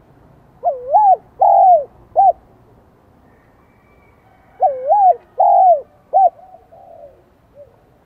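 Spotted dove cooing: two three-note phrases a couple of seconds apart, each note rising then falling, the second phrase trailing off in a few fainter notes. It is a high 'son' voice of the kind used as a call bird to provoke wild males.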